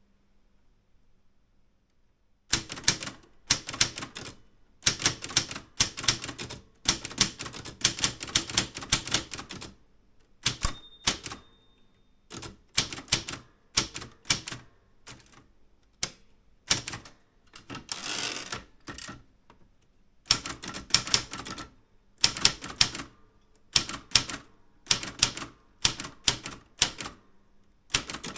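Typewriter being typed on in bursts of rapid keystrokes with short pauses between them, after a brief quiet start. About ten seconds in, a short ringing tone sounds once.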